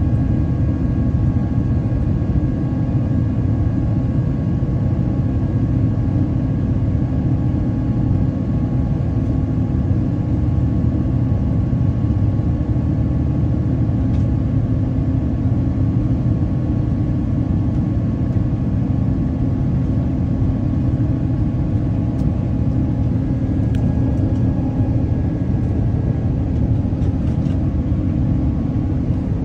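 Steady low vehicle rumble, unchanging throughout, with a few faint steady tones above it.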